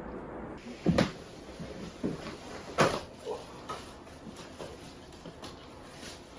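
Two loud wooden-sounding knocks about two seconds apart, followed by a run of lighter clicks and taps, like things being handled or a cupboard or door being moved.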